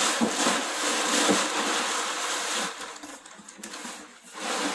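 Steady rustling, scraping noise, strongest for the first two and a half seconds, then coming and going more faintly.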